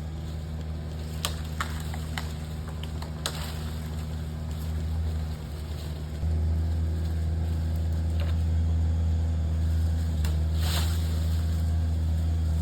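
A machine's engine running steadily with a low drone, getting louder about six seconds in as it takes more throttle or load; a few sharp clicks sound in the first few seconds.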